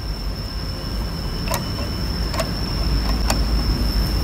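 Three small metallic clicks, about a second apart, as a coil spring is hooked out of a Bosch PE inline diesel injection pump with a wire hook. Under them runs a steady low rumble and a constant faint high whine.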